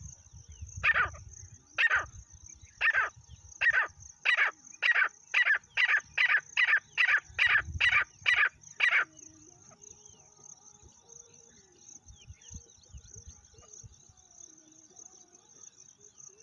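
Grey francolin calling: about sixteen loud, harsh notes that speed up from about one a second to two or three a second, then stop about nine seconds in. A steady high-pitched insect trill runs underneath.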